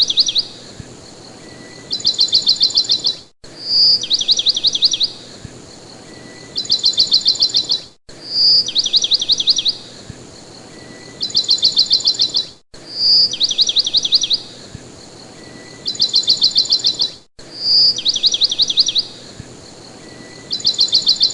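Looped recording of a songbird: a short clear whistle followed by a fast series of sharp down-slurred notes, repeating about every four and a half seconds with a brief gap each time the loop restarts.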